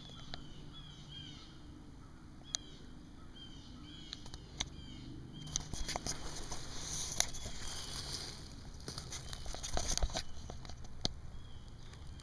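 Outdoor ambience with small birds chirping, a handful of sharp clicks or snaps, and a stretch of rustling in the middle.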